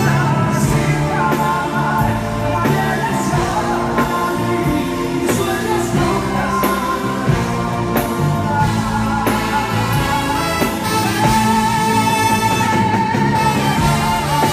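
Live band playing loudly with a steady drum beat and a saxophone and brass section, with a male singer singing into a microphone over it.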